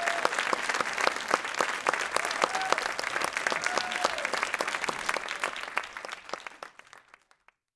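Theatre audience applauding, with a few whoops of cheering. The clapping thins out and dies away near the end.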